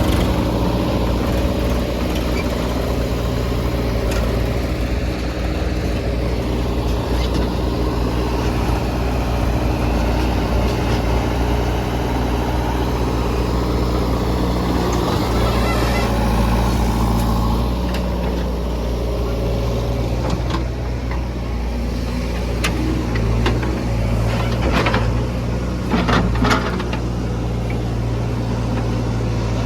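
Heavy diesel engine running steadily under some load, with several sharp knocks and clanks in the last third.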